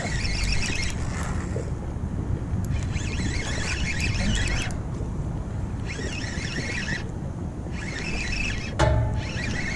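Wind buffeting the microphone, with a spinning reel whirring in short spells that start and stop every second or two as a hooked walleye is reeled in.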